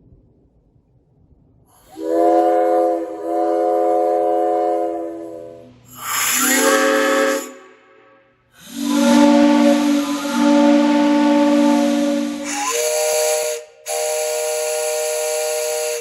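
3D-printed replica multi-chime steam locomotive whistles blown with compressed air, sounding about five separate blasts. Each blast is a chord of several tones over a rush of air hiss, and the chord changes from blast to blast because different whistles are being sounded.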